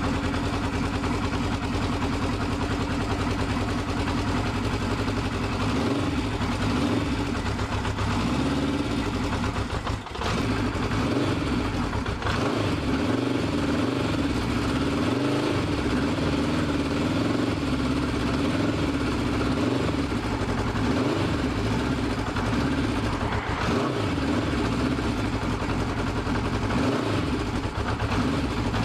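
1972 Honda CB500 Four's air-cooled inline-four engine running steadily, with a brief dip in level about ten seconds in.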